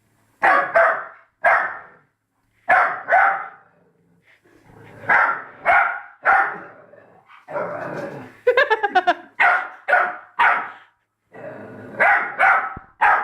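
Labrador puppy barking repeatedly at its own reflection, in loud single barks and pairs, with a fast run of short yelps about two-thirds of the way through.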